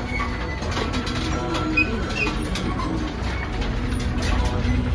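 A row of metal prayer wheels being spun by hand one after another, turning on their spindles with a steady low rumble and scattered light clicks.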